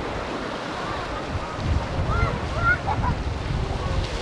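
Black Sea surf washing onto a sandy beach, with wind buffeting the microphone in a low rumble that grows stronger from about halfway through.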